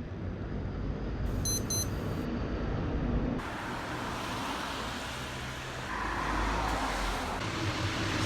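Low, steady vehicle and traffic rumble, with a short high double beep about one and a half seconds in. The background changes abruptly about three seconds in.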